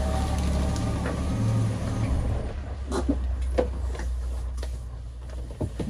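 BMW E39's engine idling steadily, with a few short knocks and clicks in the second half.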